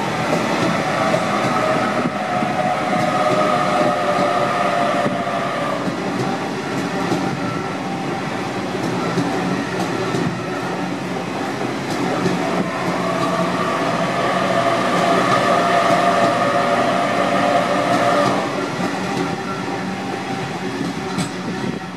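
Sydney Trains Waratah electric double-deck train running past close by: a steady rail rumble with a high, even whine that sounds in the first few seconds and again from about 12 to 18 seconds in.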